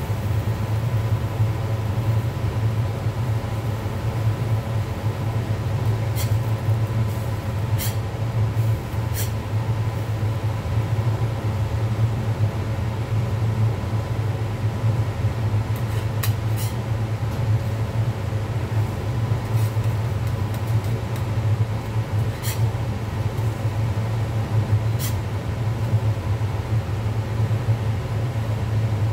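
Steady low hum of commercial kitchen machinery, with a few sharp clicks of a metal spatula against the steel griddle as pancakes are flipped.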